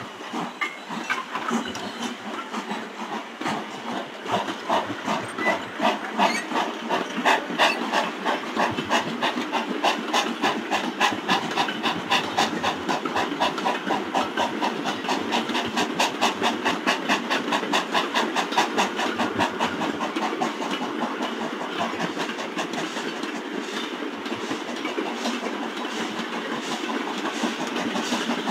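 Steam locomotive working under load: its exhaust beats come quickly and evenly over a hiss of steam.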